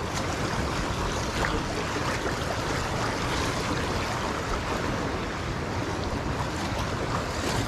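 Steady rushing of a shallow, rocky river running low over its rapids.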